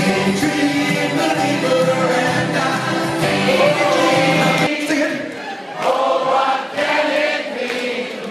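A group of voices singing together over music. About halfway through, the low accompaniment cuts out and the singing goes on more thinly, in short phrases.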